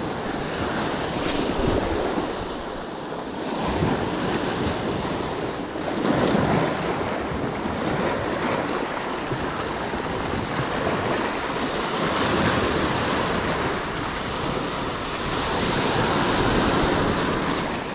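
Small surf breaking and washing over a rocky shoreline, the wash swelling and easing every few seconds, with wind on the microphone.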